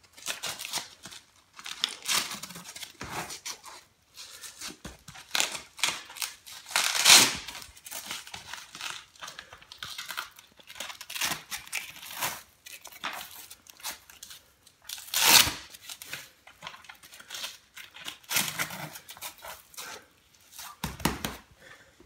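Hook-and-loop (Velcro) straps of a FormFit walker boot being pulled tight and fastened: a series of short ripping rasps with rustling between them, the loudest about a third of the way in and again past two-thirds.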